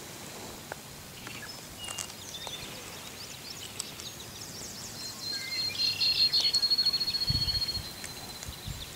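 Outdoor pond-side ambience with a bird singing: scattered high chirps, then a fast, high trill, the loudest sound, from about five to seven and a half seconds in.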